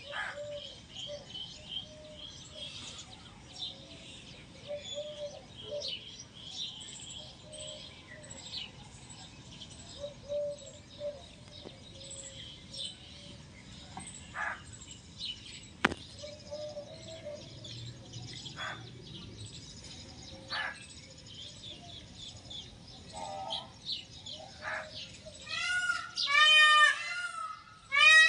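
Birds chirping and calling, with a loud run of rapid, repeated calls near the end. A single sharp click about halfway through.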